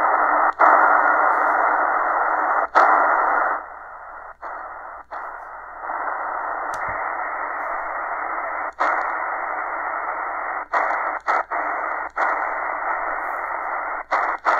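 Shortwave static hissing from the Eton Grundig Executive Satellit portable radio's speaker as it is tuned in single sideband across the 80-metre amateur band. The hiss is cut by several brief gaps as the frequency is stepped, and it drops quieter for about two seconds a few seconds in.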